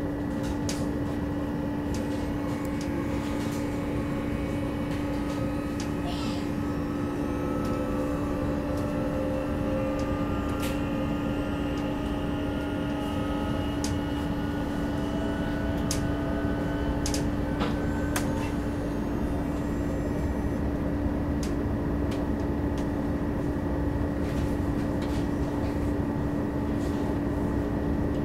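Interior ride noise of a moving Alstom Coradia Continental electric multiple unit (DB class 1440): a steady rumble with a constant hum. Faint whining tones slowly rise in pitch through the middle, and scattered sharp clicks from the running gear come through.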